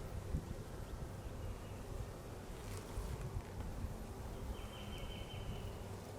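Honeybees buzzing around an open hive in a steady low hum, with some wind rumble. A thin high tone sounds briefly near the end.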